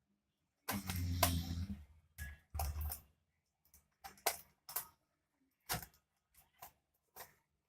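Plastic Rubik's cube being twisted by hand: a run of short clicking, scraping turns with gaps between them. There are two longer stretches with a low rumble underneath in the first three seconds.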